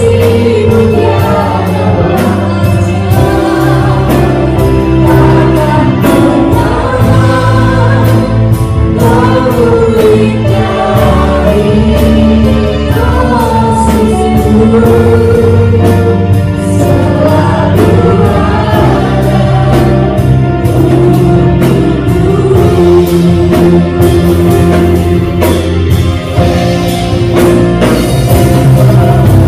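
Live church worship band playing a contemporary praise song in Indonesian: several singers in unison over keyboard, bass, guitar and a drum kit keeping a steady beat.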